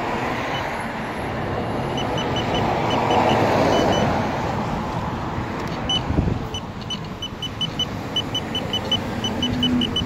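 Street traffic, swelling as a car passes about three to four seconds in, with a run of short high-pitched electronic beeps, about two or three a second, starting about two seconds in.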